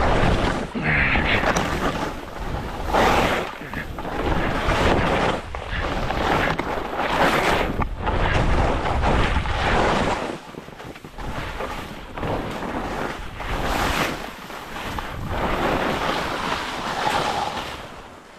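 Skiing downhill with wind buffeting the microphone, and skis hissing over the snow in a swell roughly every two seconds as each turn is carved.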